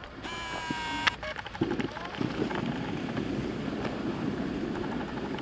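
A voice holds a long, high, steady call for about a second. After it comes a steady rush of wind on the microphone and the hiss of sliding over snow while riding down the slope.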